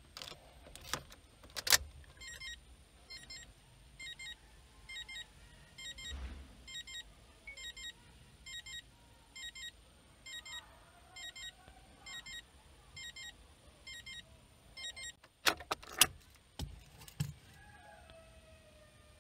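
A car's electronic warning chime repeating in short double beeps about twice a second, then stopping. Near the end come several sharp clicks and rattles of the ignition key being turned.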